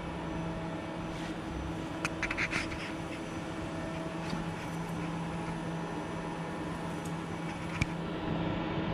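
Steady machine hum of a Hyundai Wia HD2200Y CNC turning centre, powered up and running. A few light clicks come about two seconds in, and there is one more click near the end.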